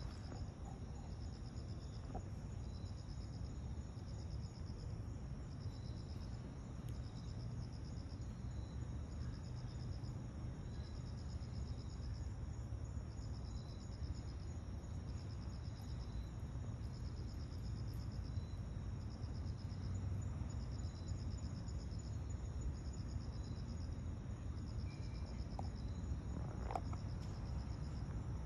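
Night-time insect chorus: crickets chirping steadily, with a regularly repeating pulsed trill over a continuous high ringing. A low steady rumble sits underneath.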